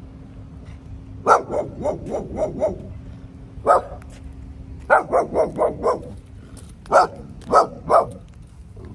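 Dog barking in volleys at someone near its yard, guarding it: a quick run of about six barks, a single bark, another run of about five, then three spaced barks near the end.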